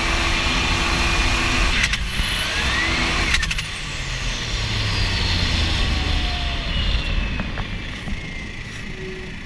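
600 hp Cummins diesel in a V-drive speed boat running under way, with wind and water rush. A high whine falls slowly in pitch and the engine sound eases off over the last few seconds, as the boat is throttled back. The sound breaks off briefly twice early on.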